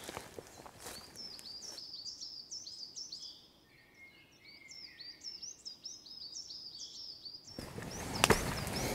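Small birds chirping in a quick series of high, hooked notes, with a few fainter whistled notes in between. Near the end, footsteps crunch along a forest path.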